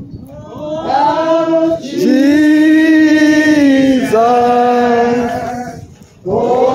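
A man singing a slow worship line through a microphone and PA, holding long notes on words like "Jesus, oh" in three phrases with short breaths between them.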